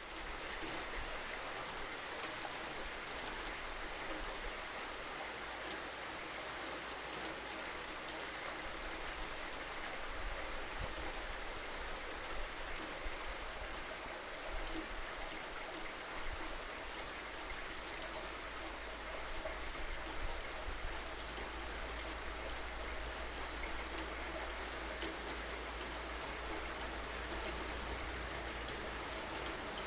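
Steady rainfall: an even hiss of rain with drops pattering on surfaces.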